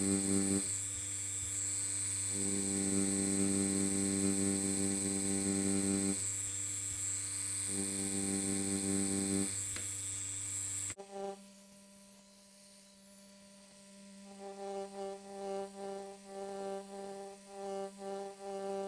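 Tattoo pen machine buzzing with a steady hum, its lower tones fading and returning a few times as the needle works in small circles to fill in an area. About eleven seconds in the sound cuts off abruptly, and after that the hum is quieter and pulses unevenly.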